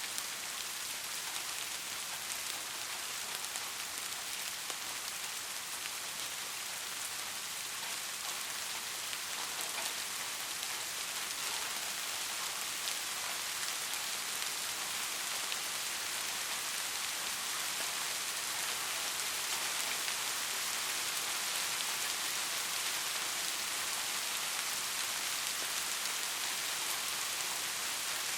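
Steady rain falling: an even hiss of many drops, with individual drop ticks showing through.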